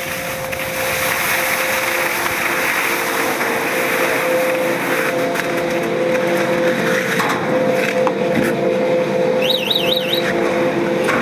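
Chairlift station machinery running with a steady hum of several held tones over a hiss. A short high warbling beep sounds about nine and a half seconds in.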